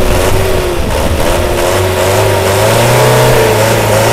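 Hyundai HD65 truck's turbocharged four-cylinder diesel engine running loudly with the cab tilted open; the revs rise about two seconds in and ease back down near the end.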